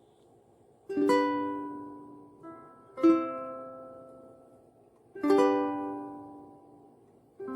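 Donner soprano ukulele strummed: four single chords about two seconds apart, each left to ring and fade, with a lighter strum between the first two.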